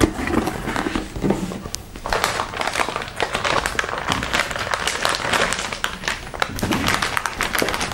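A motherboard in its metallic anti-static bag being handled and lifted out of its cardboard box, the bag's plastic crinkling with small taps and clicks. The crinkling grows dense about two seconds in.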